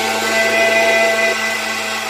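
Electric mixer grinder running steadily with a small steel jar held down on its base, the motor whining as it grinds. A little past halfway one of the whining tones drops out and the sound eases slightly.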